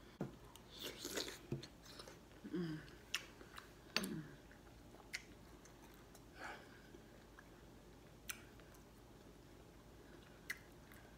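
Close-up eating sounds: a person chewing and swallowing spoonfuls of sausage and shrimp jambalaya, with a couple of short hums. A few sharp clicks of a metal spoon against a ceramic bowl.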